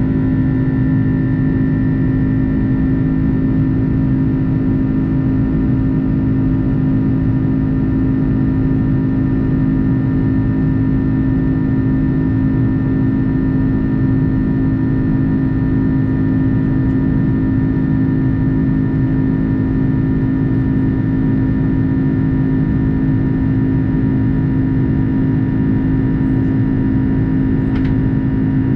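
Steady cabin drone of a jet airliner climbing after take-off, heard from a seat over the wing: the turbofan engines' constant hum with a strong low tone and a fainter high whine, over a rushing noise.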